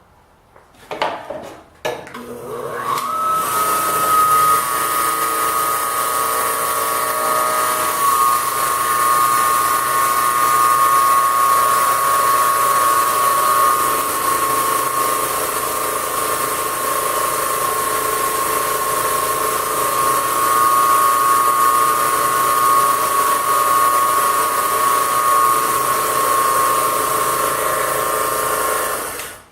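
Electric motor spinning a wire wheel in a homemade bandsaw-blade cleaner: after a few knocks it starts about two seconds in, rises in pitch to a steady high whine with a scratchy hiss, and stops suddenly near the end. The wire wheel is brushing rust off a bandsaw blade cranked through it.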